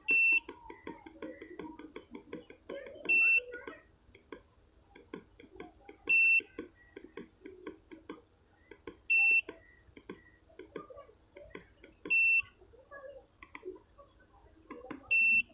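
Satellite meter beeping: six short, high beeps, evenly spaced about three seconds apart, over faint background clicks and murmur.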